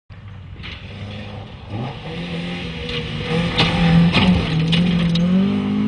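BMW E30 rally car's engine approaching at full revs and passing close by on loose gravel, its note climbing about two seconds in and loudest about four seconds in. A few sharp cracks mark the pass.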